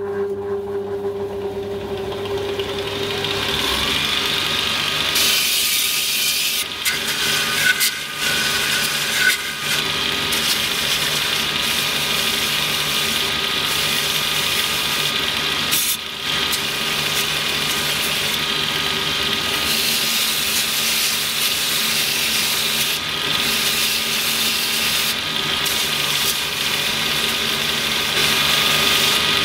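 Belt linisher running with a Scotch-Brite polishing pad belt, its motor humming steadily while a pressed sheet-metal panel is rubbed against the belt to polish out press marks. The rubbing hiss builds a few seconds in, with a few brief breaks.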